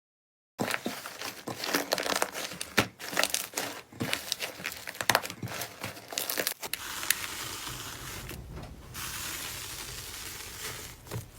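Slime being squeezed and worked by hand: dense crackling, sticky clicks and pops for about six seconds, then a steadier hiss until it cuts off suddenly.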